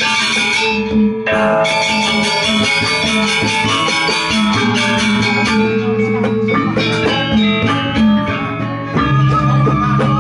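Gamelan gong ensemble playing a Balinese-style kreasi piece: bronze metallophones ringing in fast interlocking patterns over kendang drums and gongs.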